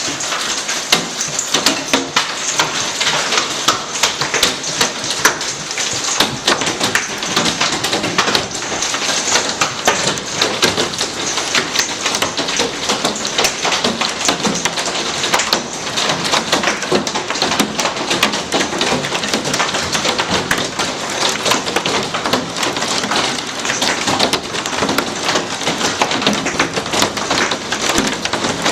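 Hailstones and rain pelting the glass panes of a glassed-in porch: a dense, steady clatter of countless small hits over a rushing hiss.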